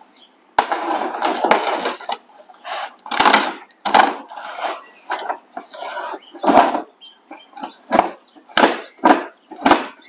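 Cardboard shipping box being cut open: a blade scraping and slicing through packing tape in a series of short irregular strokes, with the box knocking on the concrete floor now and then.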